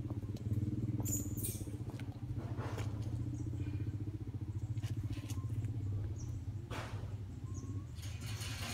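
A small engine running steadily with a fast, even pulse, with a few faint clicks and rustles over it.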